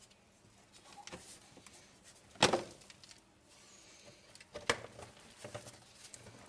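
Scattered clicks and knocks of plastic fender-liner clips and trim being pried loose and handled with a pry tool, with two loud knocks about two and a half and four and a half seconds in.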